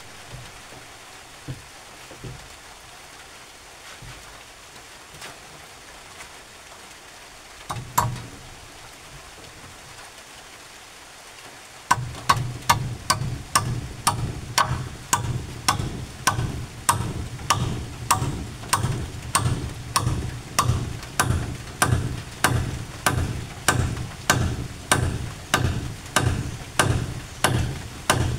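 Hammer driving a candle-wax-coated nail into a hardwood beam: one knock about eight seconds in, then from about twelve seconds steady strikes, about two a second.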